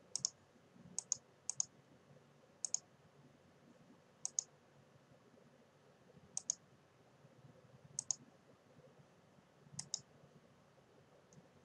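Computer mouse button clicks, faint: about nine short clicks at uneven intervals, most heard as a quick double tick of the button being pressed and released.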